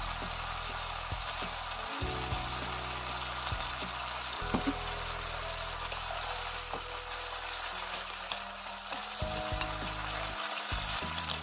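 Julienned burdock root and kelp sizzling in a bubbling soy-sauce glaze in a frying pan, the sauce reducing over high heat. A wooden spatula stirs and scrapes through the pan now and then.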